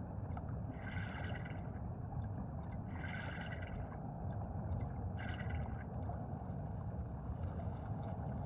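Underwater rush of moving water with three short bubbling hisses about two seconds apart, from a scuba diver's breathing.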